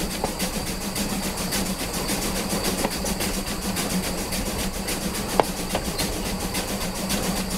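Steam locomotive Spreewald running along the track, heard up close at the front: a fast, even beat of the running locomotive over a steady hum. A short sharp ring about five seconds in.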